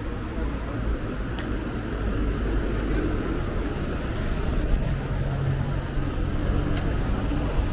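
City street traffic: cars running past with a steady low rumble, and an engine hum standing out for about a second around five seconds in.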